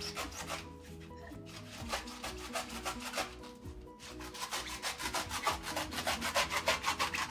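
A small kitchen knife scraping and sawing at the husk of a young coconut in quick back-and-forth strokes, about six a second, growing louder and faster in the last few seconds. Faint background music runs underneath.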